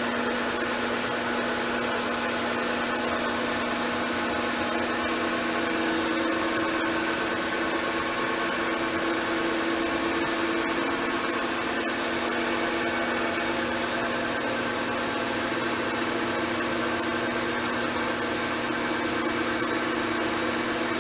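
Crankshaft balancing machine spinning a Mopar 360 small-block crankshaft at constant speed for a measurement run: a steady mechanical drone with a high, even whine.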